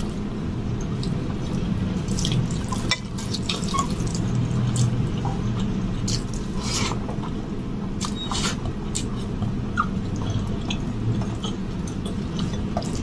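Close-miked wet eating sounds: fingers squishing rice mixed with palak paneer on a steel plate, and mouthfuls being chewed, with many scattered short wet clicks over a steady low hum.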